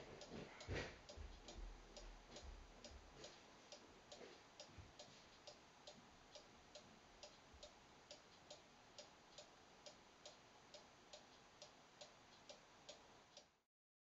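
Faint clock ticking steadily about twice a second, with a few louder knocks in the first second; the sound cuts off abruptly near the end.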